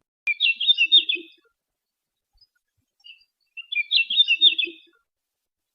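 Golden bush robin singing: two short, rapid, high twittering phrases about three seconds apart.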